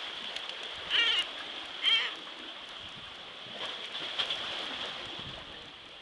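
A hooked common murre giving two wavering, pained-sounding cries about a second apart, like an 'ow'. Steady wash of surf and water underneath.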